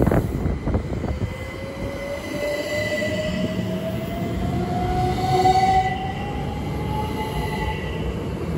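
A pair of Class 387 electric multiple units pulling away: their traction motors give a whine that climbs steadily in pitch as they accelerate, over a low rumble of wheels on the track. A sharp knock comes at the very start.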